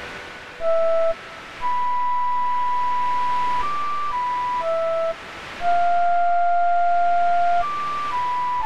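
Slow instrumental background music: a melody of single held notes in a pure, flute-like tone, some lasting about two seconds, with short dips between them.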